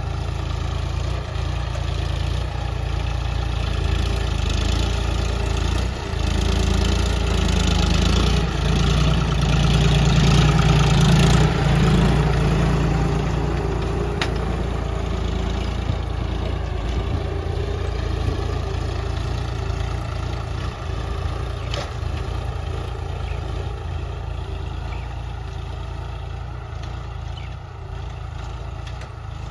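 John Deere tractor's diesel engine running under steady load as it pulls a tillage implement through the soil. It grows louder until about ten seconds in as the tractor passes close, then fades slowly as it drives away.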